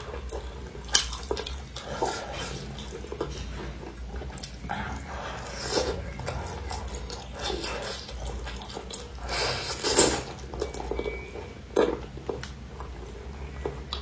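A person eating: scattered clicks and clatters of utensils against dishes, mixed with short wet chewing and sucking sounds. The loudest burst comes about ten seconds in.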